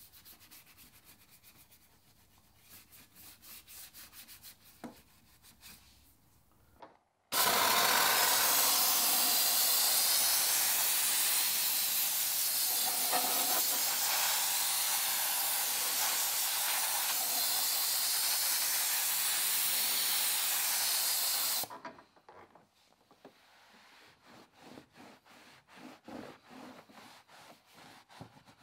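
A detailing brush scrubbing a soapy plastic engine cover in quiet strokes. About seven seconds in, a steam cleaner nozzle cuts in with a loud, steady hiss that lasts about fourteen seconds. After it stops, a microfiber towel wipes the cover in a string of short rubbing strokes.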